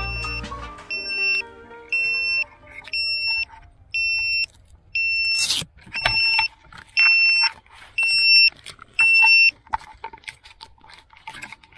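An FPV drone's lost-model buzzer beeping in short, high, even beeps about once a second, sounding from the crashed drone lying in the grass. About halfway through there is one brief rustling knock.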